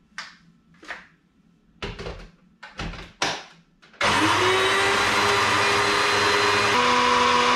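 A few knocks as the blender cup is handled and set on its base, then, about four seconds in, an electric blender starts up and runs steadily, grinding chillies into the spice paste. Its pitch rises as it gets going and steps up a little near the end.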